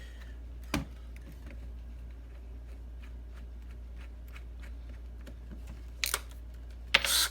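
Handling sounds of tools and a wooden workpiece over a low steady hum: a sharp click about a second in, then two short, loud noisy bursts near the end.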